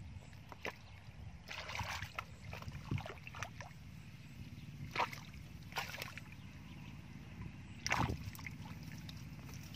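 Hands splashing and sloshing in shallow muddy water while groping for fish by hand, in several short splashes over a steady low rumble. The loudest splash comes about eight seconds in, as a fish is grabbed.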